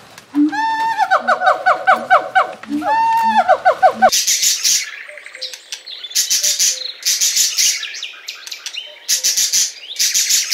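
Animal calls: a rapid run of repeated pitched notes, about seven a second, for the first four seconds. Then a blue-and-gold macaw gives harsh, high squawks in short bursts of about half a second each, several times.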